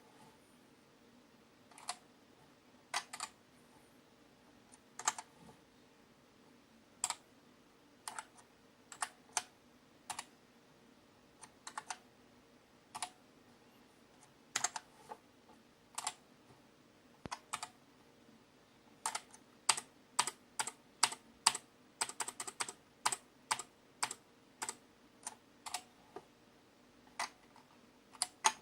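Keys of an XMIT Hall effect keyboard being pressed: separate single clicks every second or so, with a quicker run of presses in the second half, over a faint steady hum.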